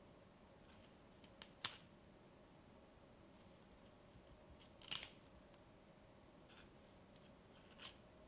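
Pages of a small, thick paperback photobook being thumbed and flipped by hand: a few short, crisp paper flicks and snaps, the loudest a quick cluster about five seconds in.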